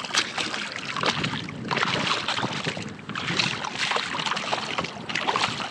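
A hooked redfish thrashing and splashing at the surface of shallow water beside a kayak hull while it is drawn in by hand on the line, in a run of irregular splashes.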